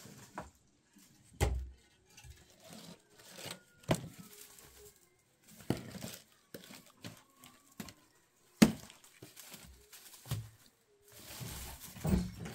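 Dry brushwood rustling and crackling as it is handled and cut up with a sickle, with a few sharp snaps; the loudest comes a little past halfway.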